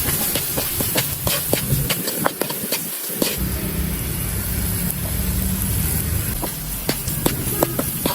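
Food sizzling and frying in a hot pot: a steady hiss with many small crackles and pops throughout.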